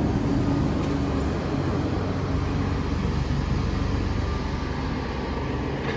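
City transit bus engine running with a steady low rumble, easing slightly in loudness toward the end.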